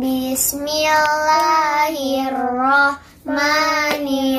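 A young girl chanting Quranic recitation in a sung melody, holding long notes, with a short break about three seconds in.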